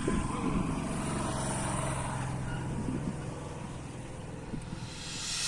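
A motor vehicle's engine running steadily, easing off in the second half, with a rising hiss near the end.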